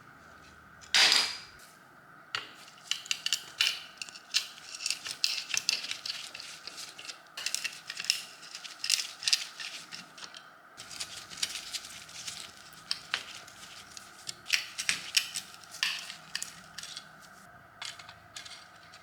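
Metal clinking and scraping in quick, irregular strokes, as when tools and metal parts are handled during work on the truck. There is one loud sharp knock about a second in.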